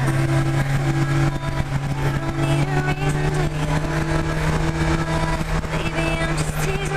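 Motorcycle engine running at a steady cruising speed, its even drone unbroken, with wind rushing over the helmet-mounted microphone.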